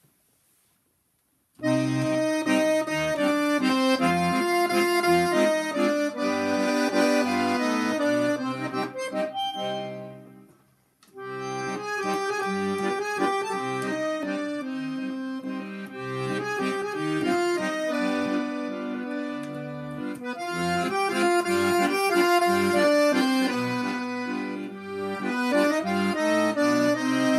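Chromatic button accordion playing a tune, with melody over sustained chords. It starts about a second and a half in, stops briefly around ten seconds, then carries on.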